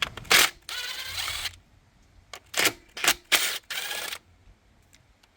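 Clicks and a few short rasping rattles, about five in all, of engine-bay parts and plastic fittings being worked loose and pulled off by hand, quiet in the last second.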